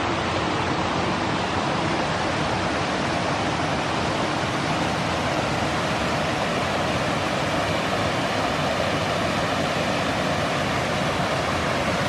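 Creek waterfall pouring, a steady, unchanging rush of falling water.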